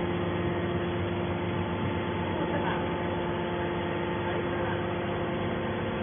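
Hydraulic scrap metal baler's power unit running with a steady, even hum.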